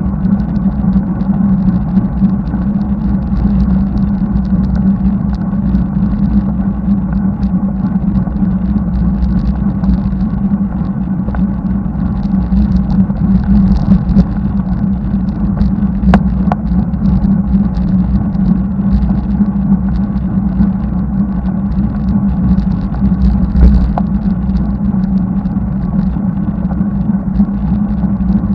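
Steady rumble of road and traffic noise with wind on the microphone of a bicycle riding up a highway behind a truck, and a single sharp click about halfway through.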